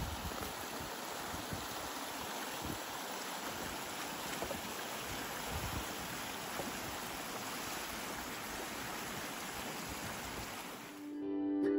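Shallow river running over a cobble bed, a steady rushing of water. Ukulele music fades in near the end.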